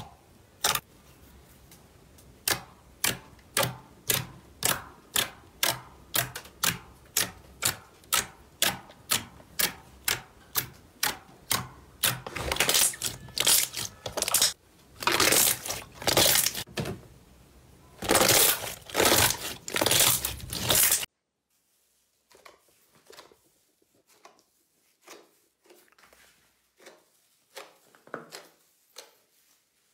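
White fluffy slime poked and squeezed by fingers, its air pockets popping in a steady run of sharp pops, about two a second, with longer crackling stretches as it is kneaded. About two-thirds of the way through it turns much quieter, with scattered soft pops as a hand presses into a large sheet of the slime.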